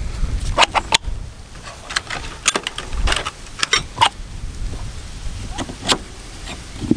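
Clicks, knocks and light plastic-and-metal rattles of a hammer drill being handled and set up, with a long masonry drill bit pushed into its chuck near the end. The drill is not running.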